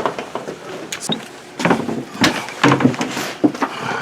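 Electrical cable being pushed and pulled through an electrical box and wall opening: irregular scraping and rustling with short knocks and clicks.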